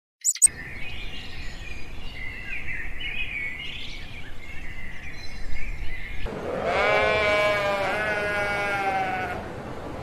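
Sheep bleating: two long, wavering bleats about six seconds in, the loudest sounds here. Before them, faint bird chirps over steady outdoor background noise.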